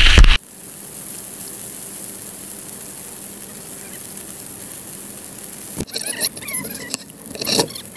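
Steady rain hiss. In the last two seconds a few short high animal calls and a knock come in over it.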